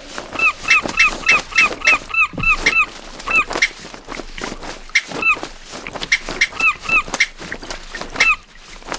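Foley effects: a quick run of about ten short squeaks, about four a second, then single squeaks now and then, among many small clicks and knocks.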